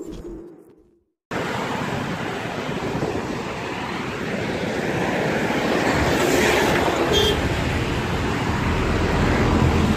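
Intro music fading out, a brief silence, then steady street traffic noise from about a second in.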